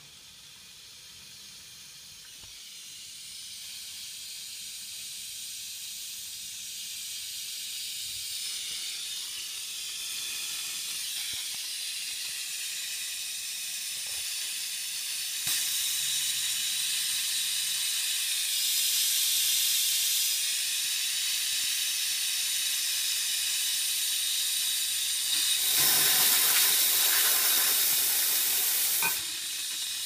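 Steam hissing steadily from the La Pavoni Professional lever espresso machine's steam wand, growing gradually louder. There is a louder, fuller rush of steam for a few seconds near the end.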